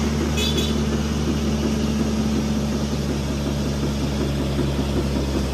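Truck diesel engine idling steadily, with an even low running note that neither rises nor falls.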